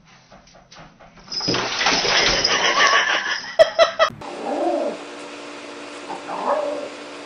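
A loud rush of running water for about three seconds, ending abruptly, followed by a quieter steady hum with two short animal calls.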